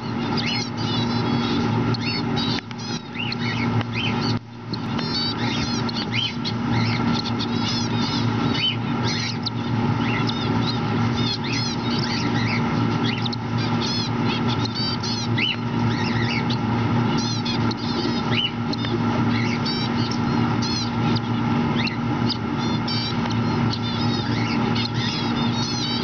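Cockatiels chirping, many short high calls in quick succession, over a steady low hum.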